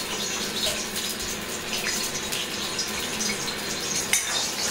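Oil hissing in a hot steel wok over a gas flame while a metal ladle spreads it, the ladle scraping and clinking against the wok, with a sharper clink about four seconds in.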